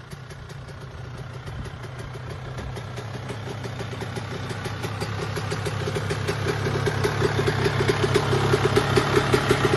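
Two-stroke motocross bike engine idling steadily with an even, rapid pulsing beat, growing louder throughout.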